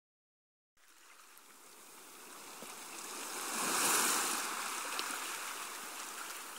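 Sea surf washing onto a rocky shore, starting about a second in and swelling to its loudest around four seconds in before easing back.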